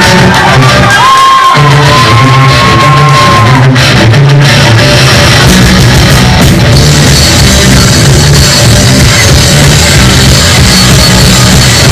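Rock band playing loud live: two electric guitars, electric bass and drum kit. A single high note is held and slides near the start, and the sound turns brighter with more cymbal about seven seconds in.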